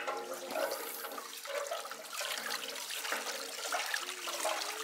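Water trickling and splashing at a hand-turned playground Archimedes-screw water pump, the screw lifting water up out of a shallow pool.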